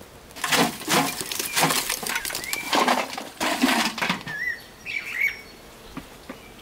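Clattering, scraping bursts of sheet metal for about four seconds as the metal chimney pipe of a small wood-burning tin stove is handled. A few bird chirps follow.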